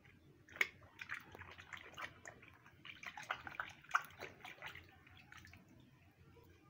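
Water splashing and sloshing in a plastic tub as a hand dunks and scrubs a small toy car: a run of small splashes begins about half a second in and dies away near the end.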